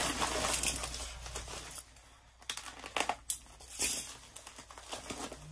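A teal mailing package being opened by hand: irregular crinkling and rustling of the packaging, with a few sharper tearing crackles.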